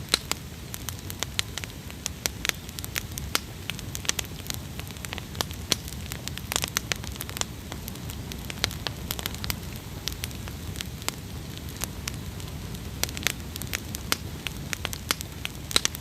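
Wood campfire crackling, with irregular sharp pops scattered over a low steady rumble.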